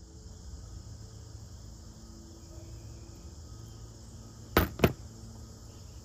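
Steady insect chorus with a low rumble underneath. About four and a half seconds in come two sharp clicks a quarter second apart, the loudest sound.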